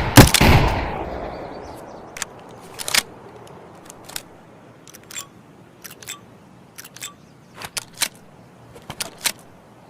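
A shot from an M22A1 MGL grenade launcher just after the start, its report dying away over about a second. It is followed by a scattering of short, sharp mechanical clicks and clacks.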